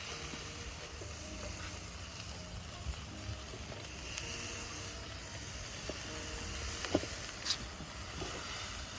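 Jerk chicken sizzling on a grill, a steady hiss, with a couple of sharp clicks about seven seconds in.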